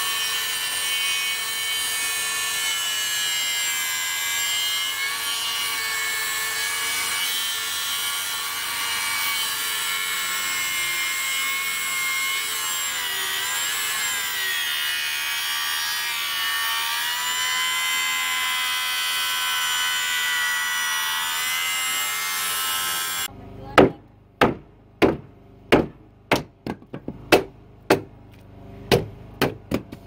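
DeWalt cordless circular saw running under load as it cuts through a squared timber: a steady whine that wavers in pitch. It stops abruptly after about twenty-three seconds, and then come about a dozen sharp hammer blows.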